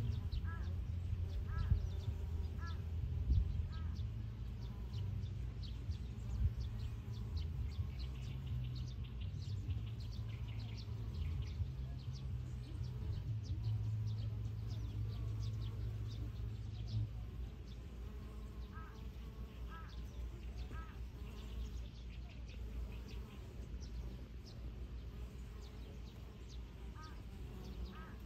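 Wind buffeting the microphone as a low rumble, easing after about seventeen seconds. Birds call over it: short repeated calls in small groups near the start, about two-thirds of the way in and near the end, with thin high chirps throughout.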